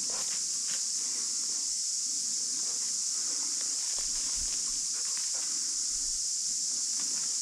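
Footsteps crunching and brushing through bush undergrowth, with scattered short crackles. A steady high-pitched hiss runs underneath.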